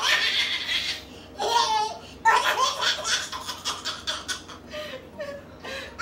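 Hard, high-pitched laughter in quick, rapid pulses from a person being tickled.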